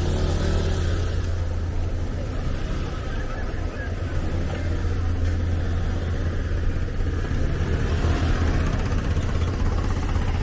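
Street ambience: a steady low rumble of car and scooter traffic under a haze of crowd noise, with no single event standing out.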